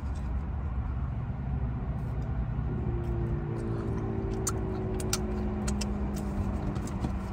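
Steady low rumble of an idling car engine heard from inside the cabin, with a faint steady hum joining about three seconds in. A few sharp wet mouth clicks from finger-licking and chewing come around four to five seconds in.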